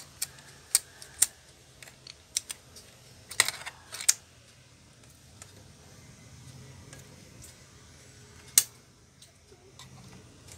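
Scattered sharp clicks and taps of a small screwdriver and fingers on the metal hard-drive bracket and plastic case of a Lenovo Y460 laptop as the hard disk is unscrewed for removal. The clicks come thick in the first few seconds, then a quiet spell, then one loud click near the end.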